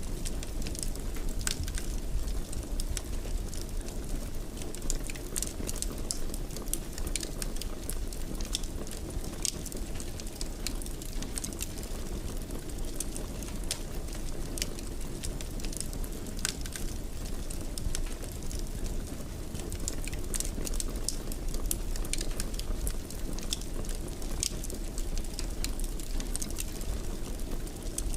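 Wood fire in a fireplace crackling, with frequent irregular sharp pops over a steady low rumble of burning.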